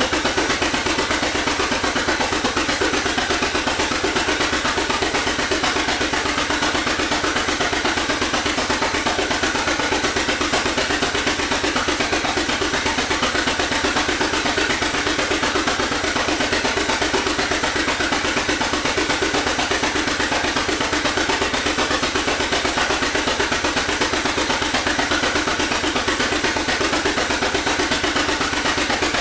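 1917 Avery 8-16 tractor's two-cylinder engine running steadily while working on the belt, driving a machine through its belt pulley under load. It keeps an even, unbroken rhythm of firing pulses.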